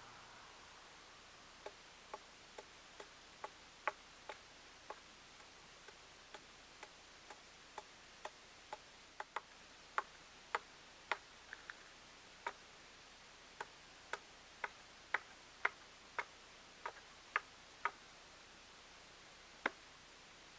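A run of sharp ticks or clicks, mostly about two a second with a few gaps, uneven in strength, over a faint steady hiss.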